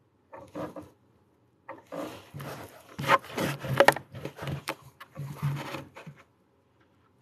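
Hands and a clay sculpting tool rubbing, scraping and knocking on a wooden tabletop close to the microphone: a brief scuff near the start, then a busy run of scrapes and knocks lasting about four seconds.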